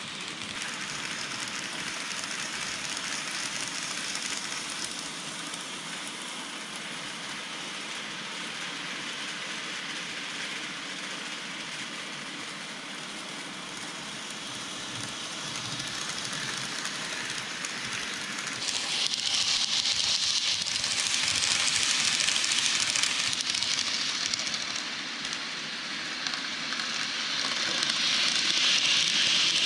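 N gauge model trains running on layout track: a steady hissing rattle of small wheels on rail and motor whir. It grows louder about two-thirds of the way in and again near the end as a train passes close.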